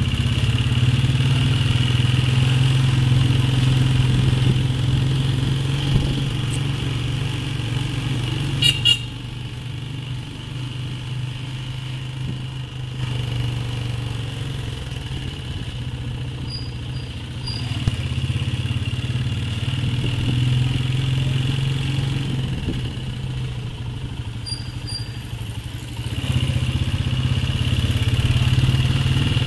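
Small motorcycle engine running steadily while riding at low speed. It drops quieter through a long middle stretch and picks up again near the end, with a short sharp sound about nine seconds in and a few faint high beeps.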